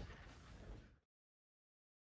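Near silence: faint studio room tone that cuts off abruptly to total silence about a second in.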